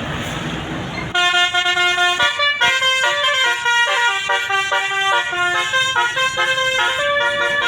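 A bus's basuri 'telolet' musical air horn playing a quick tune of changing notes, coming in loud about a second in over road traffic noise.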